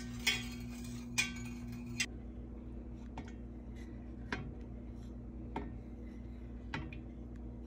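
Faint, sharp clicks, one roughly every second, over a steady low hum; a background music bed stops about two seconds in.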